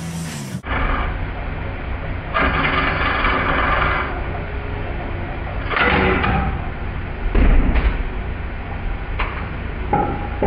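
Wood lathe running with a steady low hum, broken by several short bursts of noise; the loudest, heavier one comes about seven and a half seconds in.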